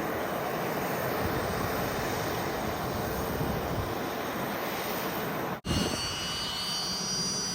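Private jet's turbine engines running on the ramp: a steady rushing noise. After a cut about five and a half seconds in, steady high-pitched turbine whine tones sound over the rush.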